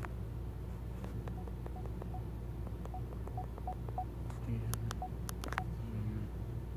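Smartphone volume-change beeps: short, even beeps at one pitch, one for each step as the media volume is raised and then lowered, over a low steady hum, with a few sharp clicks near the middle.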